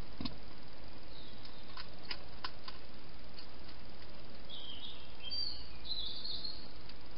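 A hedgehog chewing food, heard as a few sharp clicks in the first three seconds over a steady hiss. A bird then chirps for about two seconds near the end.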